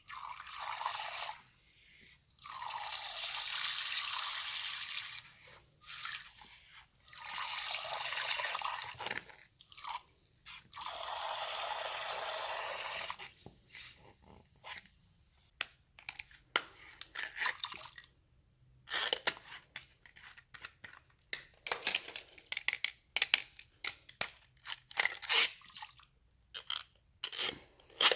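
Slime making: four long, steady rushing sounds as something is poured or sprayed in, then many small irregular wet clicks and crunches as the slime is stirred and squished.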